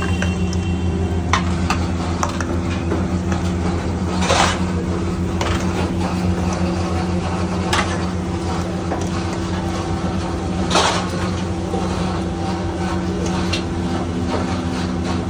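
Steady low machine hum, with a few clinks and scrapes of a steel ladle against steel bowls and platters.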